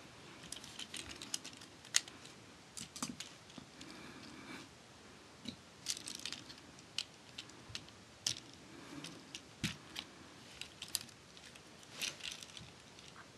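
Scattered small plastic clicks and ticks, with soft handling rustle, from a Transformers Generations Voyager Class Springer figure being handled and its helicopter-mode parts adjusted by hand.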